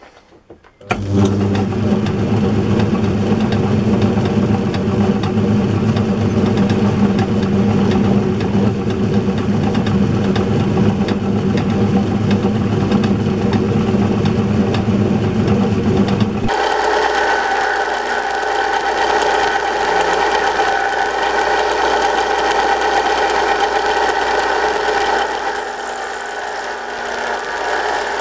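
A workshop machine tool starts and runs steadily. About sixteen seconds in the sound changes abruptly to a higher-pitched running sound with a faint high whine.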